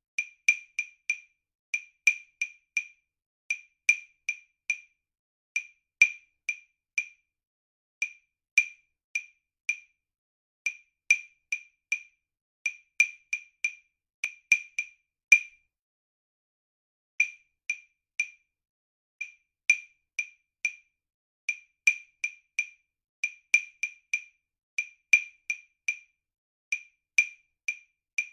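Wood-block clicks playing a 5/8 rhythm-exercise accompaniment in uneven groups of short, sharp strokes, the tempo slowing and speeding up (ritardando and accelerando). A louder accented stroke just past the middle is followed by a pause of about a second and a half, and then the pattern starts again.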